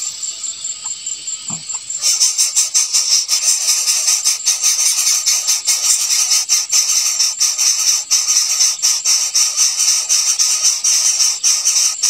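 Background music with a fast, bright jingling percussion beat, which steps up in loudness about two seconds in.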